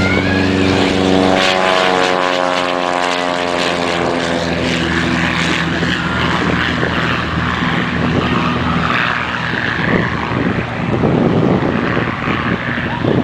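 Beechcraft Bonanza (BE33) single-engine propeller airplane at takeoff power passing close by, its engine-and-propeller drone dropping in pitch as it goes past about two to four seconds in, then fading as it climbs away.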